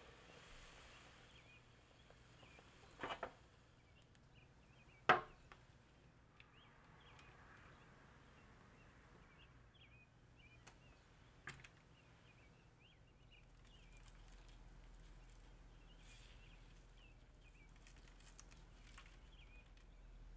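A few sharp clinks and knocks of cookware, a double one about three seconds in and the loudest about five seconds in, over faint bird chirps.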